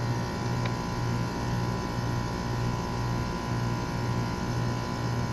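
Geostar geothermal water-furnace heat pump running: a steady low hum that wavers about twice a second, with faint steady higher tones over it.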